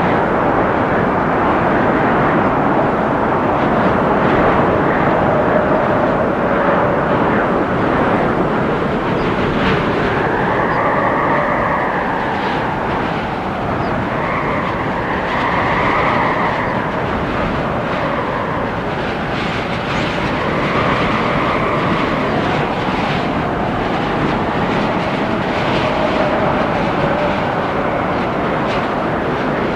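Strong storm wind blowing steadily and hard, with a howling tone that rises and falls several times.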